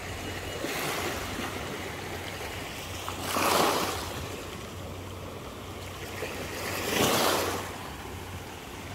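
Small waves washing onto a sandy beach, two swells of surf about four seconds apart.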